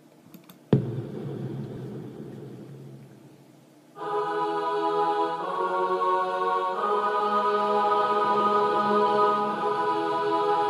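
Intro of a hip hop beat: a single hit just under a second in rings out and fades over about three seconds. Then sustained choir-like chords come in about four seconds in and change a couple of times.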